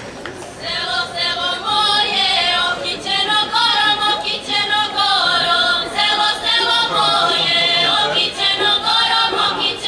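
A small group of women singing a Serbian folk song unaccompanied. The singing starts about half a second in.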